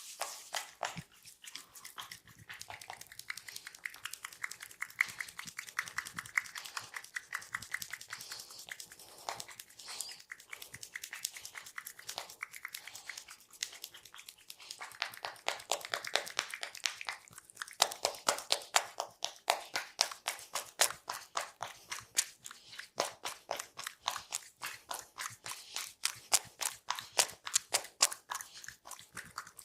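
Massage hands striking a person's body in fast, rhythmic taps, several a second, crisp and crunchy, getting louder about halfway through.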